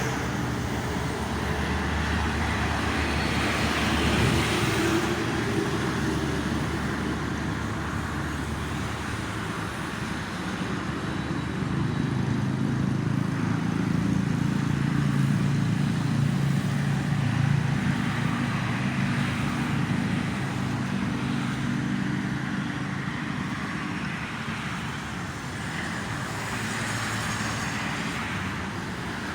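Steady toll-road traffic: cars and trucks passing below, a continuous rush of tyre noise with a low engine hum that swells and fades as vehicles go by.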